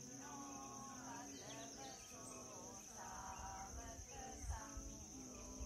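Steady, unbroken high-pitched drone of forest insects, with faint voices talking underneath.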